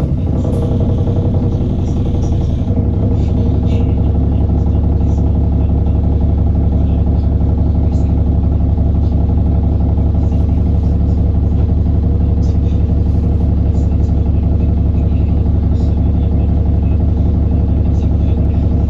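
Diesel engine of an Alexander Dennis Enviro400 Trident double-decker bus running steadily with a strong low hum, its pitch settling about two and a half seconds in, with scattered knocks and rattles; this bus is singled out for a knocking sound.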